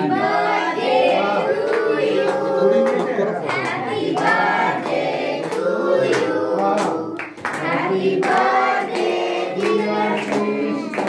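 A small group of adults and children singing a birthday song together, with hand claps scattered through it.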